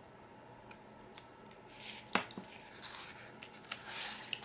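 Faint handling of paper planner pages and stickers: scattered small clicks and brief soft rustles, with one sharper click about two seconds in.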